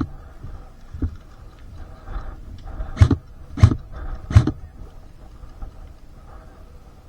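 Sharp knocks with a low thump: one at the start, one about a second in, and three in quick succession about three to four and a half seconds in, over a faint steady background.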